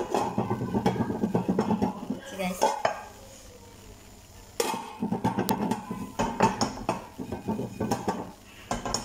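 Chestnuts rattling and rolling around inside a lidded pan as the pan is shaken, in two bouts of dense clattering with a quieter pause of about two seconds between them.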